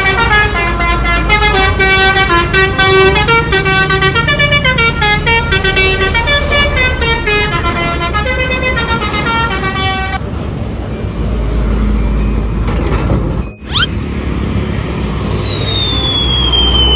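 A bus telolet horn plays a quick tune of stepping notes for about ten seconds. Then a low engine rumble, a brief break, and a long falling whistle tone near the end.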